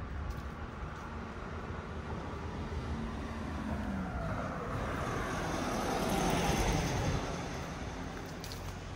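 A motor vehicle passing close by on a city street: its engine and tyre noise swell to a peak about six to seven seconds in, with a falling pitch as it goes by, over a steady low traffic hum.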